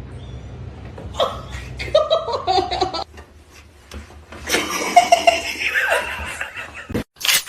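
A person laughing in several bursts, loudest a little before halfway through.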